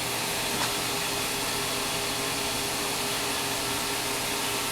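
Kellenberger CNC cylindrical grinder running with its OD grinding wheel spinning: a steady hiss-like running noise with a faint steady hum beneath it, and a faint click about half a second in.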